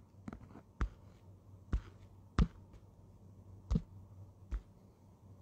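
About six short, sharp taps and knocks, spaced irregularly about a second apart: fingers tapping and handling a smartphone right at its microphone.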